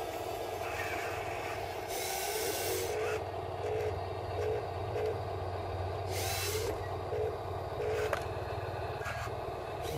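Huina RC wheel loader running, its electric motors giving a steady low hum, with short beeps repeating about twice a second through the middle and two brief bursts of noise as it drives up with a full bucket.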